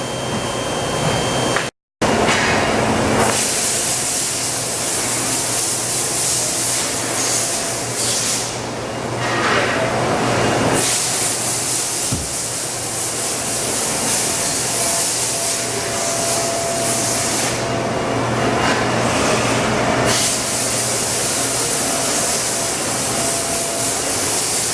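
Mori Seiki SH500 CNC horizontal machining center running, with a loud spraying hiss over a steady machine hum; the hiss eases off twice and comes back.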